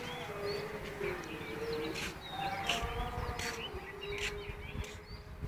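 Birds chirping in quick, short calls, over a faint held tone that slowly bends up and down in pitch.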